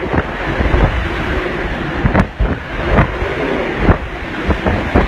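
Hurricane-force wind blowing hard and buffeting the microphone, with several sudden hits in the gusts.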